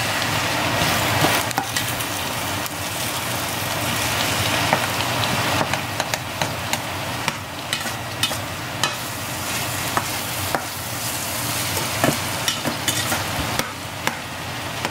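Ground beef and shrimp sizzling in a stainless steel skillet as they are stirred, a steady frying hiss dotted with scattered sharp ticks and pops.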